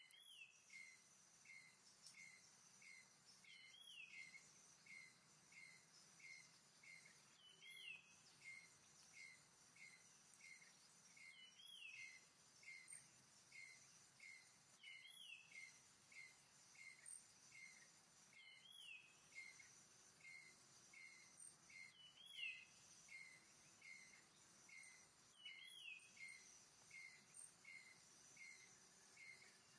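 Faint forest ambience: a bird repeating a short note about three times a second, with a higher, falling call every three to four seconds, over a steady insect buzz.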